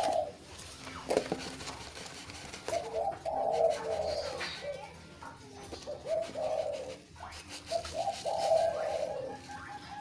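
Doves cooing: several phrases of short, rolling notes, starting about three seconds in and repeating through the rest.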